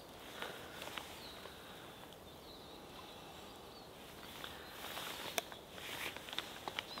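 Faint outdoor background, then from about four and a half seconds in a few light plastic clicks and knocks as an AeroPress Go coffee press is lifted off its cup and set down.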